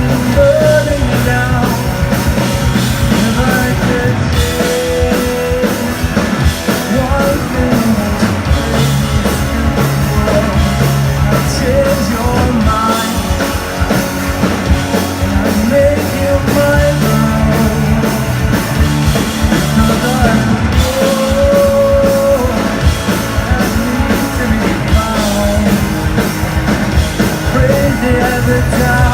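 Live rock band with electric guitars, bass and drum kit playing loudly, with a sung melody line over it, recorded from the audience.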